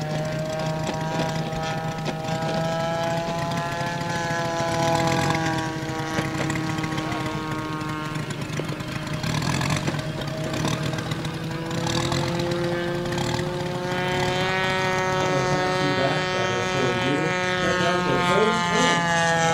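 Moki radial engine of a large-scale RC F4U Corsair idling as the model taxis, a steady low run that sags slightly in pitch, then rises a little in the second half.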